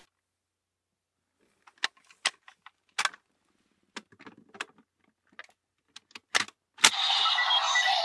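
Plastic clicks and rattles of the DX Bujin Sword Buckle being handled and fitted into a Desire Driver belt toy. Near the end a sharp click as it locks in, then the belt's electronic sound effects start playing from its speaker.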